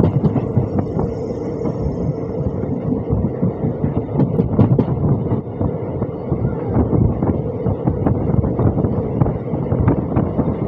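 Express passenger train running at speed, heard from an open coach door: a loud, steady rumble of wheels on the rails with wind buffeting the microphone, and scattered short clicks and clatters.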